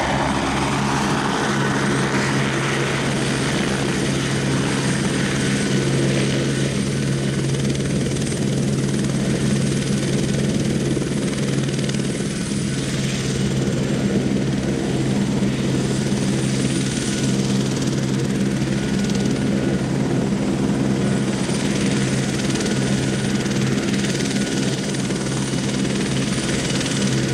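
Eurocopter AS350 Écureuil helicopter coming down from a hover and then running on the ground with its main rotor turning. A rush of rotor noise settles in the first couple of seconds into a steady hum, with a thin high turbine whine above it.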